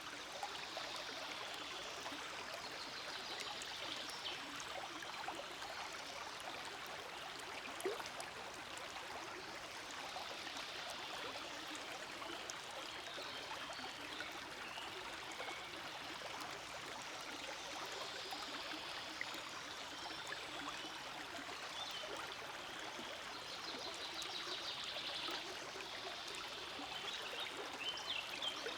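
Forest stream flowing and trickling steadily, with one small sharp click about eight seconds in.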